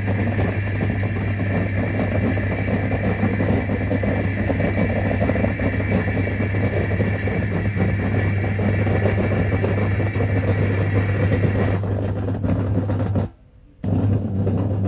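Samsung dishwasher running its wash cycle: a steady motor hum with water spraying and splashing. It cuts out for about half a second near the end, then resumes.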